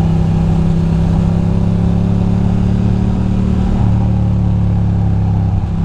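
Ducati Monster 620's air-cooled V-twin running at a steady cruise, heard from on the bike, its low note shifting slightly about four seconds in.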